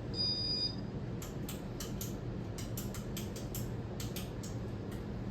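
Buttons on a ceiling fan's control clicked again and again, about a dozen sharp, irregular clicks, after a short high beep at the start, over a low steady hum. The fan is not starting.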